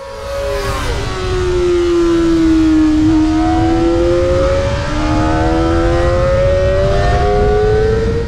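Kawasaki Ninja ZX-25R's 250 cc inline-four engine revving and held high, its pitch dipping a little, then climbing slowly and steadily over several seconds, over a rough low rumble.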